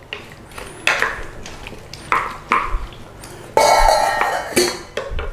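Wooden spoon stirring chunks of potato and carrot in a slow cooker pot: several short scraping knocks, then a longer scrape lasting about a second, about three and a half seconds in.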